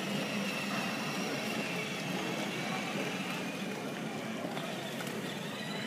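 Steady whir of children's battery-powered ride-on toy cars driving over a tiled floor, with a faint high whine from their electric motors.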